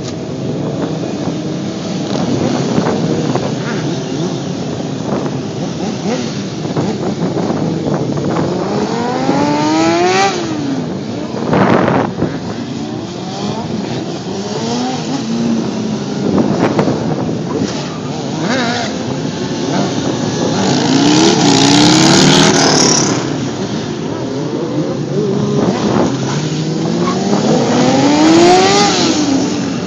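Several motorcycle engines revving up and down as riders pull wheelies and circle, their pitch repeatedly climbing and dropping over the steady drone of other bikes. The loudest pass comes about two-thirds of the way through.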